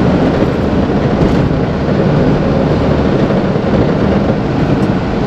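Mercedes-Benz Atego bitruck's diesel engine and road noise, steady while the truck drives along.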